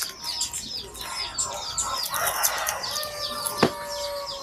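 Chickens calling and small birds chirping rapidly, with one long held call, like a rooster's crow, starting about three seconds in; a single sharp click partway through it.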